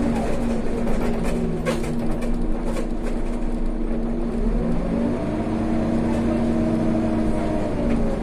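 Scania Omnicity G articulated city bus heard from inside the passenger cabin while under way: a steady engine and driveline hum with whining tones whose pitch dips about halfway, climbs again, and drops near the end, and a few light clicks and rattles.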